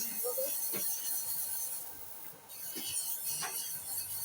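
Stainless steel hose end being abraded by hand: two long, hissing scraping passes with a short break about two seconds in.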